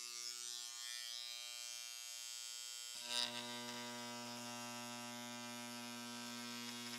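Vintage Craftsman electric engraver buzzing steadily, its carbide tip vibrating at 7,200 strokes per minute. About three seconds in the buzz grows louder as the tip is set on aluminium plate and starts engraving.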